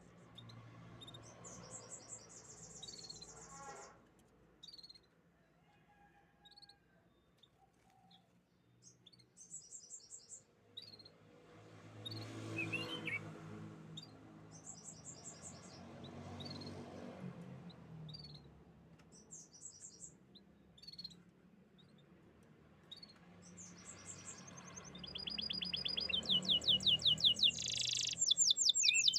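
Canaries singing: short, rapid high-pitched trills every few seconds, building near the end into a long, loud trill, over a faint low hum.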